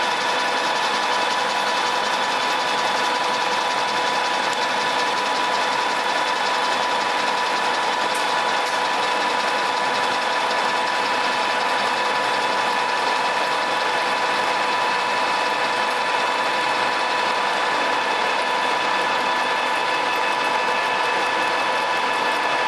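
American Pacemaker engine lathe running under load as a carbide insert takes a roughing facing cut across a steel workpiece. The sound is a steady machine drone with several constant pitched tones over a dense cutting hiss, unchanging throughout.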